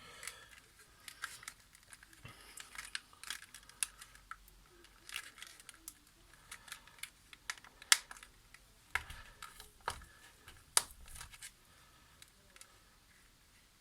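Plastic casing of a TV remote control being handled during reassembly: scattered light clicks and taps, with a few sharper clicks in the second half.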